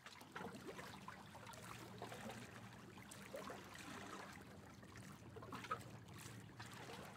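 Faint outdoor street ambience: a low steady hum with scattered small clicks and rustles, and one sharper click about three-quarters of the way through.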